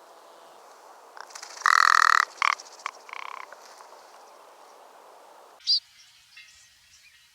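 Rock ptarmigan giving croaking calls: one long call about two seconds in, then three shorter ones. After a change of recording, a single short high call sounds near six seconds.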